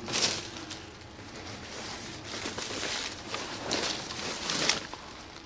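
Footsteps rustling and crunching through dry brush and undergrowth: a handful of short, uneven bursts over a quiet outdoor background.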